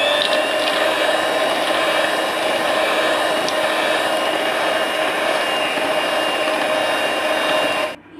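Electric hand mixer running at a steady speed, beating egg whites and sugar in a stainless steel bowl. A constant motor whine cuts off sharply near the end as it is switched off.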